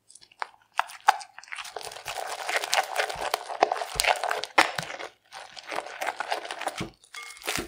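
Sticky glitter slime with polystyrene beads being stirred and scraped with a silicone spatula in a glass bowl. It makes a dense, irregular run of wet crackles and clicks, pausing briefly about five and seven seconds in, as the activator thickens the glue into slime.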